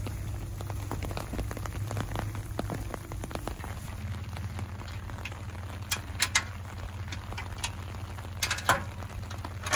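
Metal clanks of a trailer coupler, hitch and chains being worked onto an SUV's receiver hitch: two sharp knocks about six seconds in and a louder one near the end. Under them is a steady low hum and a patter like rain on wet slush.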